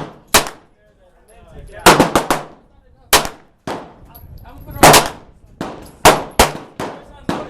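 Firearms shooting: about a dozen sharp gunshots at irregular intervals, some in quick doubles and triples, each with a short echoing tail.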